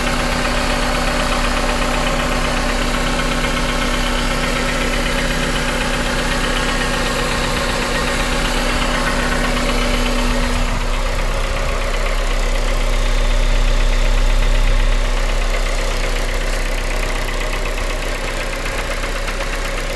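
Honda K20A four-cylinder engine idling with a persistent knock over the fuel injector tick. The owner does not know the cause and thinks it is too quiet to be rod knock. A steady hum under it stops about halfway through.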